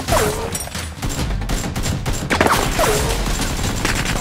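Rapid gunfire sound effects dubbed over a toy blaster's shooting. There are two falling whistling sweeps, one at the start and one about two and a half seconds in.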